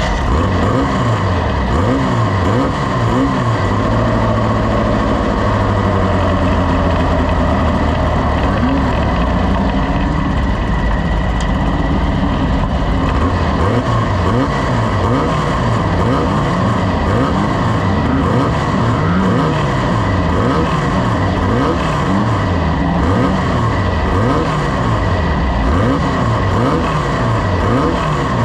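Off-road race vehicle engine running hard, its pitch rising and falling over and over about once a second, over a steady roar of noise.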